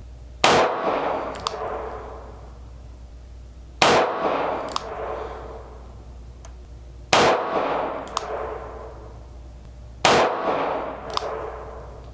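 Four single-action shots from a Taurus 942M 2-inch .22 Magnum revolver, fired about three seconds apart, each trailing off in room reverberation. A sharp click about a second after each shot is the hammer being cocked for the next.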